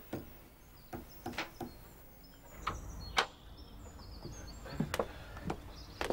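A few light clicks and knocks, then outdoor background with a house door opening and footsteps stepping out, plus faint high chirps.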